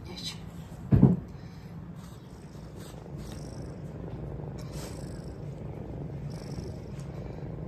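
A domestic cat purring close to the microphone: a steady low rumble throughout. One short, loud thump comes about a second in.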